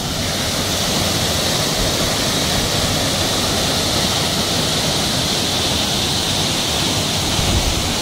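Partly frozen waterfall: water falling down an ice-covered rock face into its plunge pool, a steady loud rush with spray.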